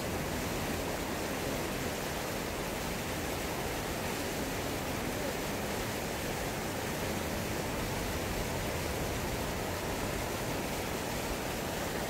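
Shallow mountain stream running over rocks, a steady rushing water noise that does not change.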